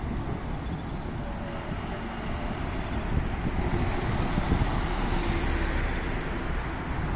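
City road traffic: a steady rumble of engines and tyres, swelling about halfway through as a Mercedes-Benz Atego box truck drives close past, with cars following.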